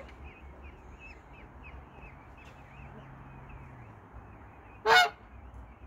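A peahen gives one short, loud honking call about five seconds in, over a steady run of soft peachick peeps, two or three a second.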